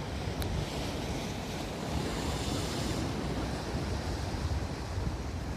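Ocean surf washing against the rocky cliffs below, with wind rumbling on the microphone. The wash swells briefly about two seconds in.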